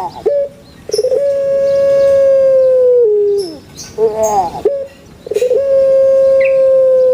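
Puter pelung (Barbary dove, Streptopelia risoria) singing its long coo. Two drawn-out calls, each a steady held note of about two seconds that drops in pitch and falls away at the end, with a short burst of broken notes between them.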